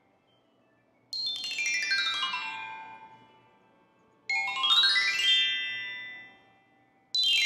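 Mallet glissandos across a metallophone's bars: a sweep down from high to low notes about a second in, a sweep up from low to high about four seconds in, and another sweep down near the end, the notes ringing on after each. The falling and rising sweeps are cues for low and high pitch in a listening game.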